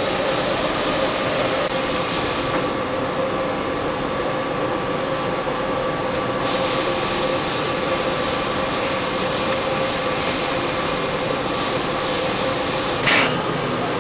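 Steady factory machinery noise with a constant hum, and a short, louder hiss about 13 seconds in.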